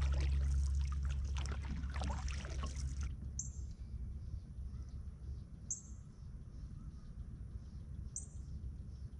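Canoe gliding on calm water with paddle splashes and a low rumble for the first few seconds. After that a bird gives a short, high, falling call three times, about every two and a half seconds.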